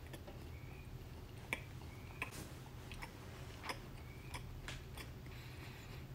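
Close-up chewing of barbecued meat with the mouth closed: soft wet smacks and a handful of sharp mouth clicks at irregular intervals, over a low steady hum.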